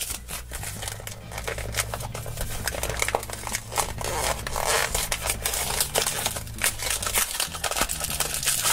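Small cardboard toy box being pried and torn open by hand, with a continuous rustle of crinkling packaging and cardboard tearing.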